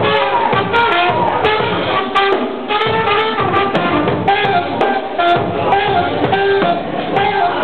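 Live band playing: a saxophone holding melodic notes over electric bass and a drum kit.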